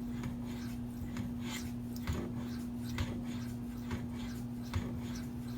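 Maxamet steel knife edge stroked back and forth across a fine Venev resin-bond diamond stone (20/14 micron): light, faint scraping strokes about one or two a second, the edge skating smoothly over the stone. A steady low hum runs underneath.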